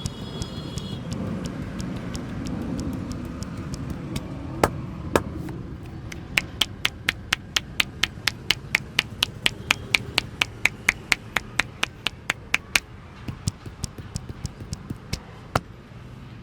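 Rapid, sharp hand slaps of a percussive back and shoulder massage. Two single strikes come first, then a brisk run of about three or four a second for several seconds, thinning out to sparser, softer slaps near the end. Low street traffic rumble runs underneath.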